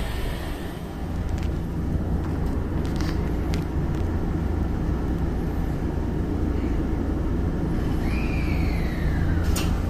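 Electric commuter train standing at a station platform just before departure: a steady low hum from the train's onboard equipment, with a few light clicks and a faint tone gliding downward near the end.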